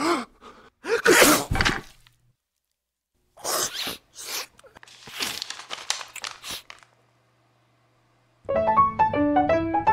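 A comic sneeze: a rising 'ah-ah' build-up, then one loud sneeze about a second in. A few short scattered noises follow, and near the end a keyboard music sting of stepped notes begins.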